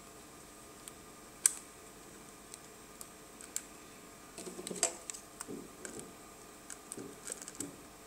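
Light clicks and taps of a small screwdriver and screw on a laptop's metal hard-drive bracket while the drive is screwed back in, with one sharper click about one and a half seconds in. In the second half the clicking gets busier, mixed with handling noise.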